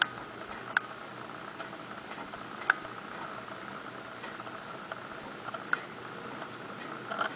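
Blizzard: a steady hiss of wind-driven snow, with a few sharp ticks at irregular intervals.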